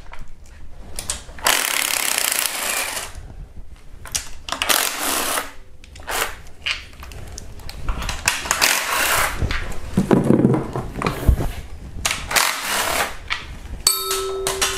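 Cordless impact wrench running in about five short hammering bursts, each around a second long, as it backs out the valve cover bolts one at a time.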